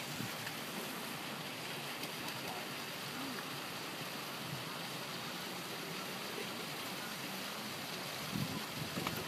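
Steady rushing hiss of water from a pond aerator spraying the surface, even and unbroken. A few louder, uneven sounds come in near the end.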